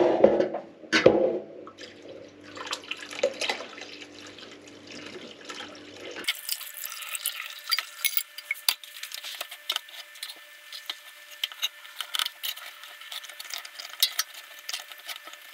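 Curds and whey poured from a stainless steel pot into a cheesecloth-lined sieve in a steel sink, splashing and dripping. Then a metal spoon scrapes and taps against the pot and sieve, making many small clicks.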